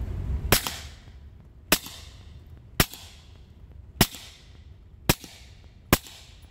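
Suppressed Glock 26 pistol with a SilencerCo Omega 9K silencer firing six shots of 147-grain subsonic 9mm, about one a second. Each shot is a short, sharp report with a brief fading tail.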